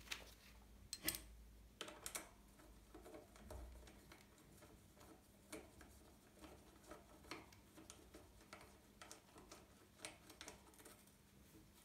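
Faint, scattered clicks and light taps of a BMX crank bolt and hex key being handled while the bolt is wiped and threaded back into the crank arm.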